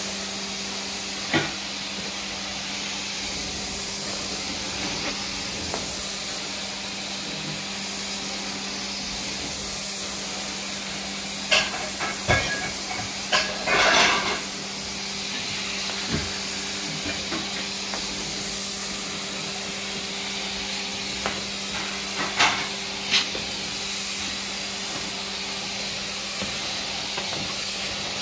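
Carpet-cleaning extraction wand drawn across carpet, its suction giving a steady hiss over a steady machine hum. A few sharp clicks and knocks, bunched together about halfway through.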